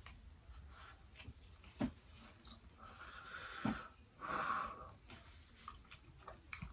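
A man breathing hard with a wheeze, two drawn breaths about three and four and a half seconds in, with a few faint mouth clicks, while he eats and swallows a big piece of spicy chicken.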